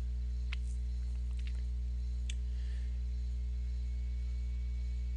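Steady low electrical hum on the recording, with a few faint clicks scattered through it.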